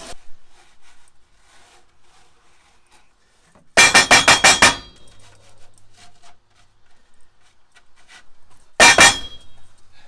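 Wooden-framed sand riddle knocking and rattling on steel rails as it is shaken rapidly back and forth while sifting foundry molding sand. There are two short bursts of fast knocks, one about four seconds in and a briefer one near the end, with faint scraping of sand in between.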